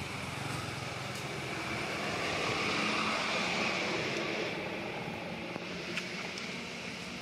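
Steady outdoor background noise, a hiss with a faint low hum, that swells for a couple of seconds about two seconds in, with one faint click near the end.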